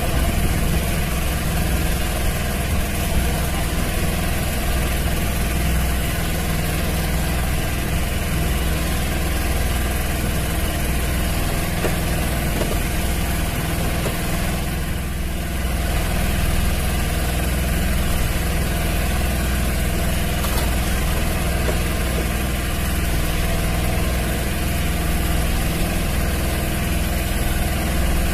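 A fishing boat's engine running steadily, a loud, even hum that does not rise or fall.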